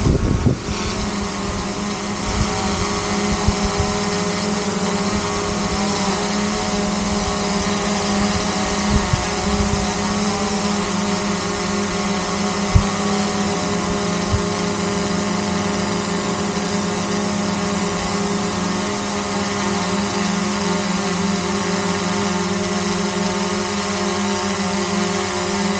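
DJI Mavic Air 2 quadcopter hovering close by: the steady hum of its four motors and propellers, a strong low tone with a stack of higher tones held level. There are a few brief low bumps on the microphone.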